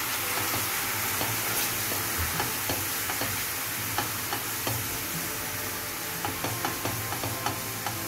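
Sugar caramel, thinned with a little water, sizzling and bubbling in a pan as it is stirred with a silicone spatula. There is a steady hiss, with frequent small clicks and scrapes from the stirring that come more often near the end.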